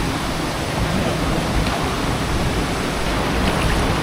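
A waterfall's steady rush of falling water, loud and even.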